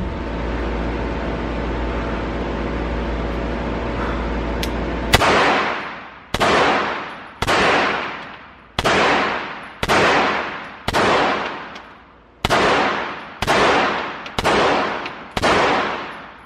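Ten 9mm pistol shots from a Beretta M9A3, fired singly about a second apart, each ringing out with the long echo of an indoor range. The last shot empties the magazine and the slide locks back. Before the first shot there are about five seconds of a steady low hum.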